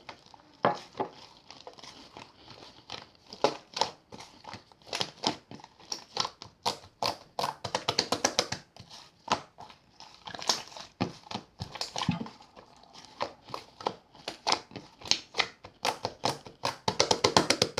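Slime being squished, poked and stretched by hand, giving an irregular run of sticky clicks and pops that bunch into a quick rattle of pops near the end.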